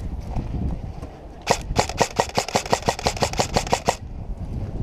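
Airsoft rifle firing a rapid string of sharp shots, about seven a second, for about two and a half seconds, starting about a second and a half in.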